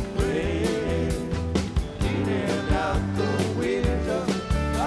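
Rock band playing: drums keeping a steady beat under bass guitar and electric guitars, with a melodic line gliding above.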